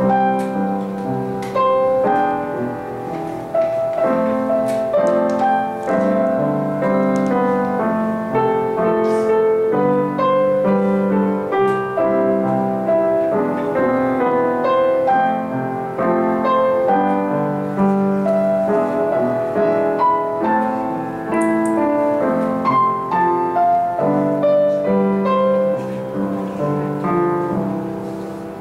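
Acoustic piano played four hands: a light, lively pop-style melody over a harmony accompaniment, with many quick notes.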